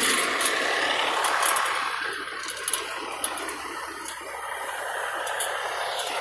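A vehicle engine running, a steady noisy hum with some rattle, and two short clicks near the middle.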